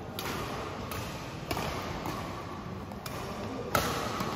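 Badminton rackets hitting the shuttlecock in a rally: about five sharp smacks, roughly a second apart, over a steady background hall noise.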